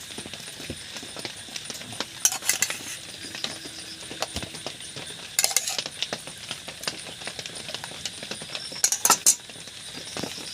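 Utensils clinking against plates during a meal: three short clusters of sharp clinks about three seconds apart, with lighter taps between.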